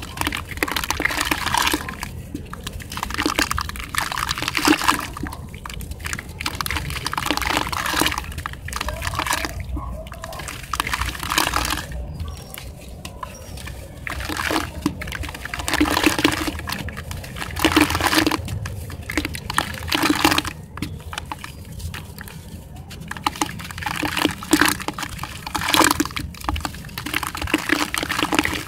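Hands crumbling a soft sand-cement block into a bowl of water and squeezing the wet paste: wet sloshing and splashing with gritty crumbling, in irregular bursts.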